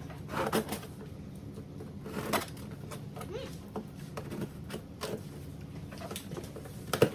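Scissors cutting and scraping through the packing tape on a cardboard box, in short scratchy strokes at irregular intervals, with a sharper click near the end.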